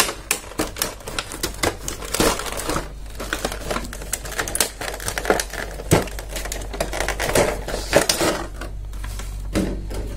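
Thin clear plastic blister packaging crinkling and clicking as hands pry the cover loose and lift it off the plastic tray, with many sharp crackles and snaps.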